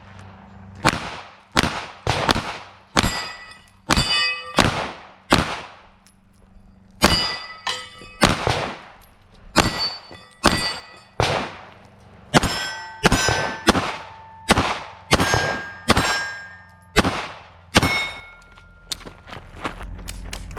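Rapid pistol shots at roughly two a second, each followed by the ringing clang of a struck steel plate. The string breaks briefly about six seconds in, then stops a couple of seconds before the end.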